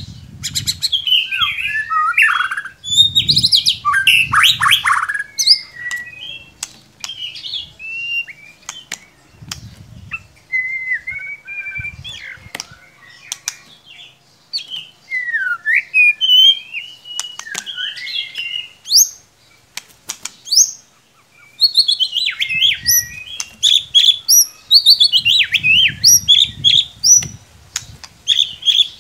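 White-rumped shama (murai batu) singing: loud, varied whistled phrases, rising and falling sweeps and rapid trills, with short pauses between bursts. Low muffled thumps come and go under the song.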